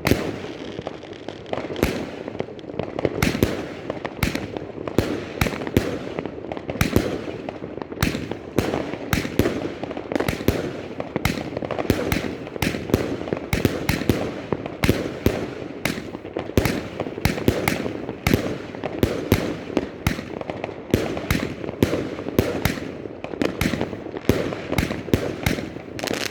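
Fireworks going off without a break: a dense run of sharp bangs and crackles, several a second.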